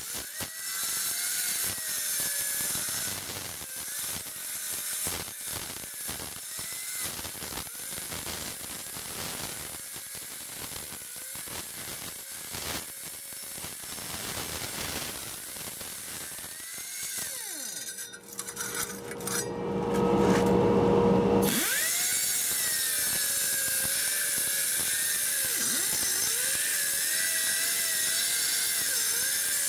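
A crack cleaner's spinning wire-brush wheel scouring out a crack in concrete, with a gritty scratching and a motor whose pitch rises and falls as the load changes. It gets louder about two-thirds of the way through, then runs steadier.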